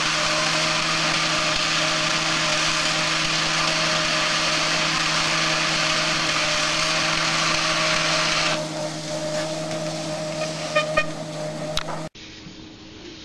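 Home treadmill running: a steady motor hum under a loud hiss from the belt. About two-thirds of the way through the hiss falls away while the hum goes on, a few light clicks follow, and the sound cuts off abruptly near the end.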